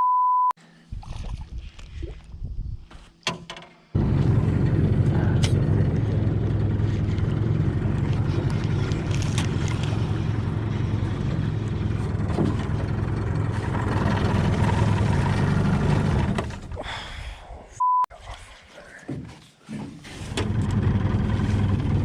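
A boat's motor runs steadily, coming in about four seconds in, dropping away for a few seconds near the end and then picking up again. A one-tone censor bleep sounds at the very start, and a shorter one about three-quarters of the way through.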